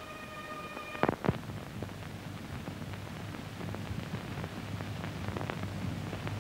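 Steady hiss with a low hum and scattered faint clicks and crackle. A faint held high tone stops abruptly about a second in, marked by two sharp clicks.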